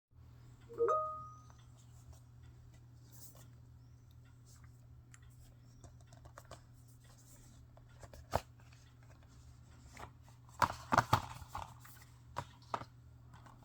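A short rising tone about a second in, then scattered sharp clicks and taps over a steady low hum: the handling of Blu-ray cases and their packaging, with a quick cluster of clicks about two-thirds of the way through.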